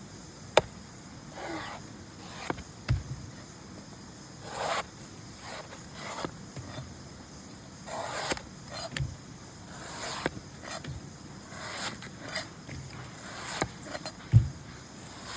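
A coconut being worked by hand: sharp clicks, repeated scraping swishes and a few dull low thumps at irregular intervals.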